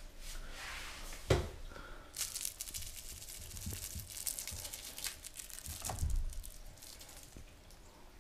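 Crinkling rustle of a fabric fish cat toy being shaken by hand for a few seconds, with a low thump about a second in and another about six seconds in.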